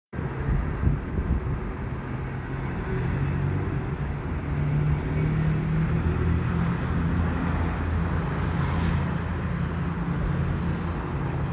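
Car driving: a steady engine hum with road noise.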